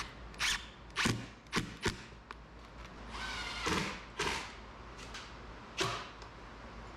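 A power drill driving screws in short runs, mixed with sharp knocks, as the top transition cap is fastened onto the pop-up camper's roof. The longest drill run comes about three seconds in, with a rising whine.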